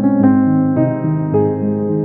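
Background music: a soft electric piano playing chords, with a new note or chord about every half second.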